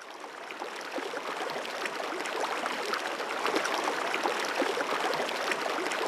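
Running river water flowing and bubbling over stones, full of small gurgling pops. It fades in over the first couple of seconds, then holds steady.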